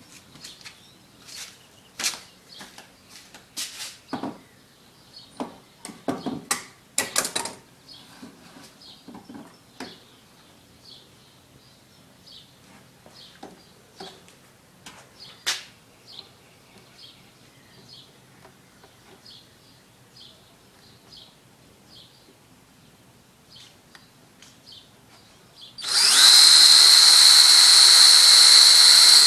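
Scattered knocks and clicks of wood and tools being handled, then faint short chirps about once a second. About 26 seconds in, a cordless drill starts with a loud, steady whine, drilling holes in wood, and keeps running.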